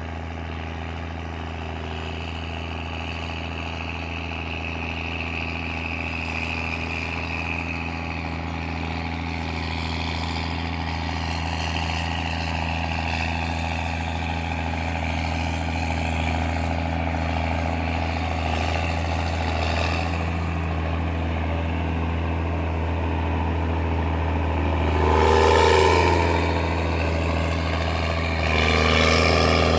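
Case tractor engine running with a deep, heavy note: a steady low drone that grows slowly louder, with two brief louder swells near the end.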